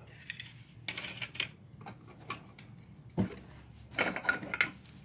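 Old plastic toy train cars being handled and set down on a workbench: light clicking and rattling, in a short flurry about a second in and again near the end, with one duller knock a little after three seconds.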